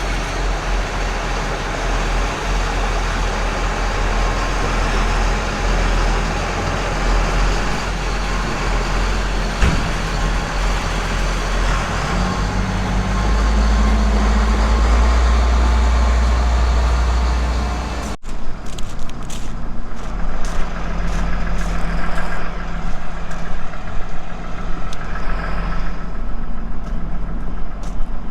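A heavy diesel engine, most likely a farm tractor, runs steadily and picks up speed about halfway through. After an abrupt cut it runs on with a clatter of sharp knocks and rattles over it.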